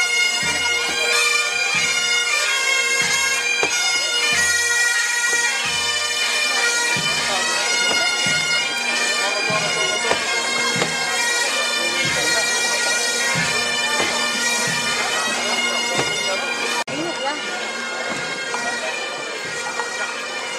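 Bagpipes playing a march tune over their steady drones, with a bass drum beating roughly once a second underneath. There is a brief break about seventeen seconds in, after which the music is a little quieter.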